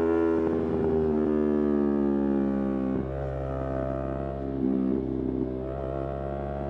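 Yamaha R3's 321 cc parallel-twin engine under way, its note sliding down over the first three seconds as the bike slows, then running lower and quieter with a short burst of throttle near five seconds.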